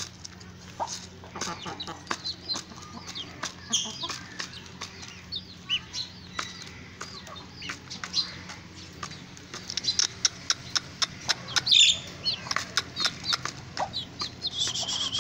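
Aseel rooster pecking feed from a hand-held plastic bowl: rapid sharp taps, densest in the second half, with chickens clucking in between. A long, steady high call starts near the end.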